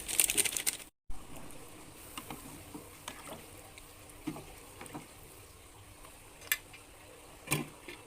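Stovetop cooking: a short burst of crackling sizzle, then, after a cut, liquid being stirred in a pot with scattered light clinks of a utensil.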